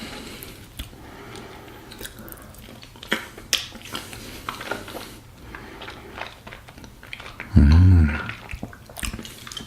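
Someone eating a spoonful of black sesame ice cream: soft mouth and lip sounds with small clicks, then a short, loud hummed "mmm" of approval near the end.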